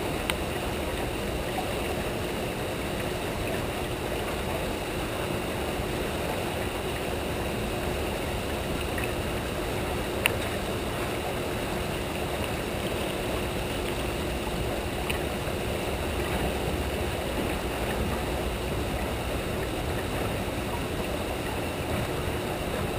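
Turbulent dam tailwater rushing and churning around a small boat, a steady wash of noise with a faint steady hum beneath it. A few light taps break through, the sharpest about ten seconds in.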